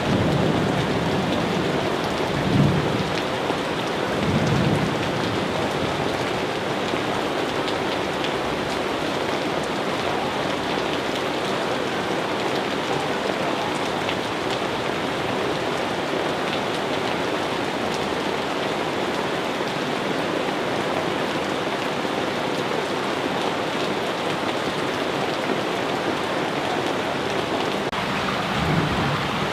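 Steady rain pouring down, with short low rumbles of thunder about two and four seconds in and again near the end.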